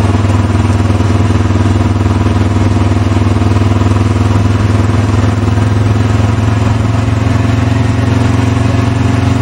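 An engine running steadily at an even speed, with a low, constant hum.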